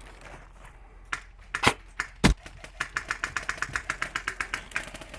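Airsoft electric guns firing: three separate single shots in the first half, then a rapid burst of about ten shots a second lasting about two seconds.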